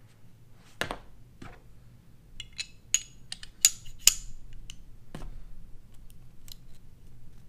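Small metal parts of a Glock pistol slide clicking and clinking as it is reassembled, with the recoil spring fitted into the slide. Scattered light clicks, with a quick run of sharper, ringing clicks about two to four seconds in.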